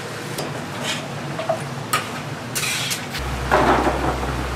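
Stall kitchen clatter of metal utensils clinking, with a short hiss. About three and a half seconds in comes the loudest sound: a steel scoop tipping sticky glazed fried chicken onto a steel tray, the pieces tumbling and scraping on the metal.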